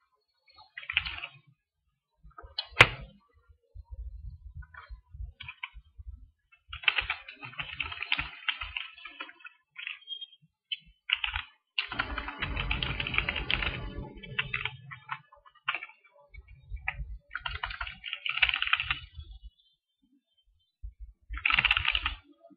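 Computer keyboard typing in short irregular bursts of key clicks, with pauses between, the longest and densest burst about halfway through. One sharp, louder click stands out about three seconds in.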